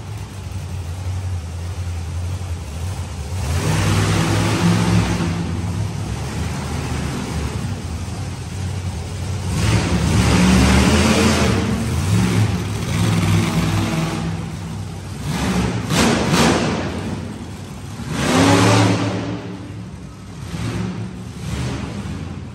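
Off-road racing engines revving hard in repeated surges, the pitch climbing and dropping as they accelerate and back off. A few sharp cracks come about two-thirds of the way through.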